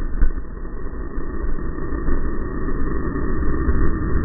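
Low, steady rumbling noise that slowly grows louder, the aftermath of an exploding target's blast while its fireball burns over the water.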